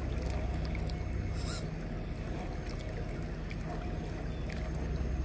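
1/10-scale RGT EX86110 RC crawler creeping over a rock ledge, its small electric motor and gears whining faintly over a steady rushing noise with a low rumble.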